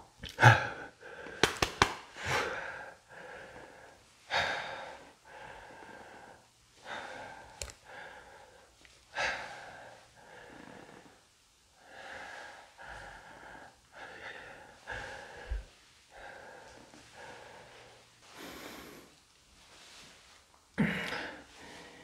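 A person breathing heavily close to the microphone, a short breath every couple of seconds, with a few sharp clicks near the start.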